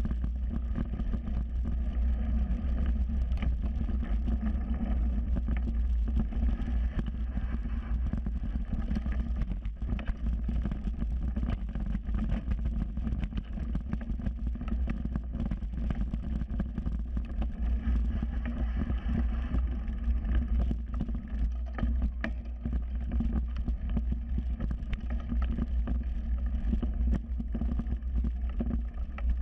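Mountain bike ridden fast on a dirt singletrack, heard through a camera mounted on the bike: a steady low rumble of wind and tyres, broken by frequent small rattles and knocks as the bike goes over bumps.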